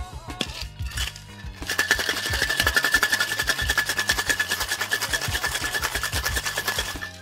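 Ice rattling hard inside a sealed metal cocktail shaker as it is shaken vigorously. The shaking starts under two seconds in and keeps up a rapid, steady rattle for about five seconds.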